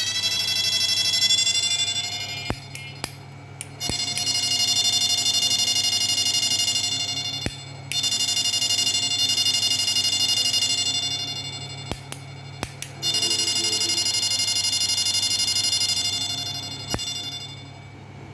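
MOSFET inverter of an electric shock-fishing machine running at high output with a shrill whine of several tones, which rises a little at first and comes in four stretches of a few seconds. Sharp clicks fall in the gaps between stretches.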